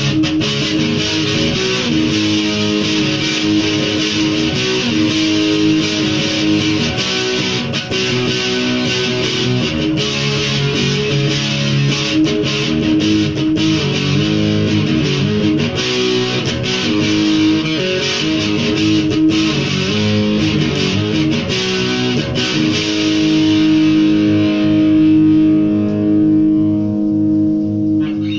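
Electric guitar played solo, a busy run of picked notes; in the last five seconds or so a chord is held and left ringing.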